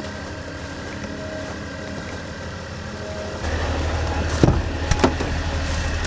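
Sprinter van's engine idling, a steady low rumble that gets louder about three and a half seconds in, followed by two sharp knocks half a second apart.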